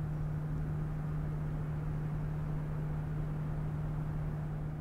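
A steady low hum under an even rushing noise.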